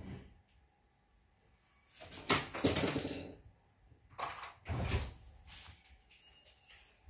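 Rustling and scuffing of bedding as a baby monkey scrambles over pillows and a duvet, in two loud bouts about two and four seconds in, with softer scuffs between.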